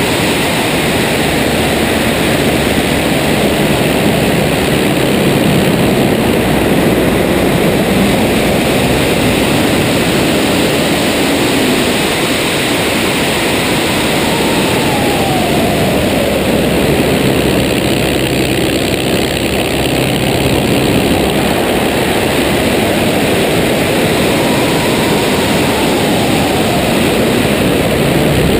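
A de Havilland Tiger Moth's four-cylinder engine and propeller running in flight, mixed with heavy wind rush over the wing-mounted camera. A tone within it falls twice, about halfway through and again near the end.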